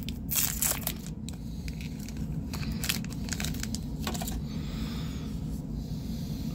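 A foil trading-card booster pack torn open, its wrapper crackling sharply about half a second in. Softer crinkles and rustles follow as the cards are pulled out and handled.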